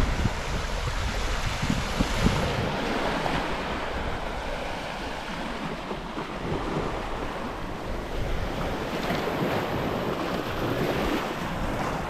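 Small sea waves washing onto a pebble beach, the wash swelling and easing as waves run up the shingle, with wind rumbling on the microphone.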